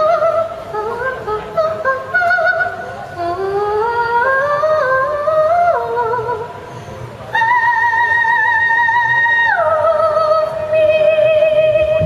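Female soprano voice singing in classical crossover style, climbing through rising stepwise runs. About halfway through she holds a long high note with vibrato, then drops to a lower sustained note near the end.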